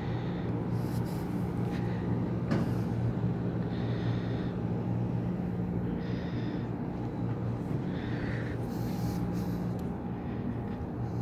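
Air-conditioning unit running with a steady low hum, with a few short faint hisses and clicks over it.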